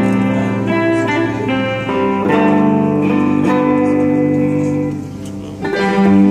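Live band of electric guitars and a string section of violins and cello playing an instrumental passage of held chords. The music drops back about five seconds in, then the full band comes back in louder.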